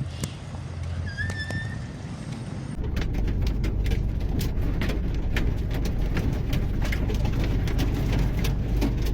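Vehicle engine running with a steady low rumble, with a short chirp about a second in. A cut near three seconds brings in a louder engine rumble with many scattered clicks and rattles.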